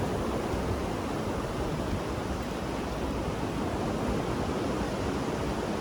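Ocean waves rolling and washing ashore, a steady rushing of surf with no distinct breaks.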